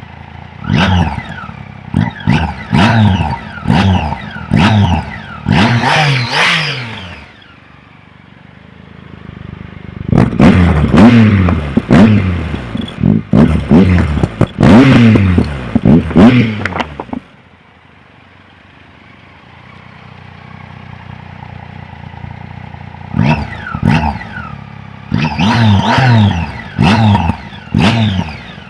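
Triumph three-cylinder motorcycle engine blipped on the throttle again and again, each rev rising and dropping back to idle. The revs come in three runs of about one a second, with the engine idling steadily between them.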